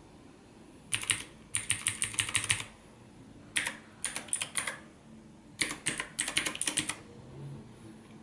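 Redragon Kumara K522 mechanical keyboard with clicky blue switches, keys pressed in three quick bursts of rapid clicking keystrokes separated by short pauses.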